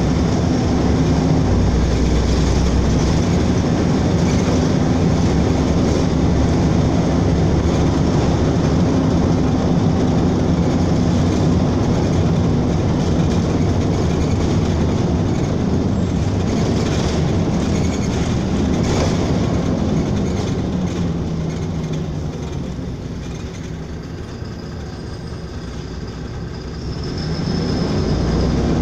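Inside a LiAZ-5292.22 city bus under way: steady hum of the diesel engine and drivetrain over road and body noise. About twenty seconds in the engine note falls and the noise eases as the bus slows, then it rises again near the end as the bus picks up speed.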